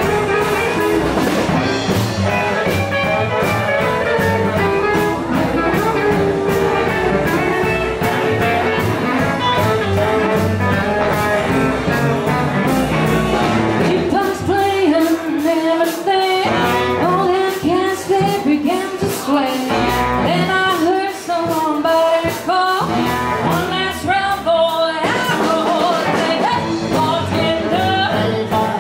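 Live band playing a song, with guitars, drums and vocals. About halfway the bass and drums drop back in stretches, leaving mostly singing over guitar, and the full band comes back in near the end.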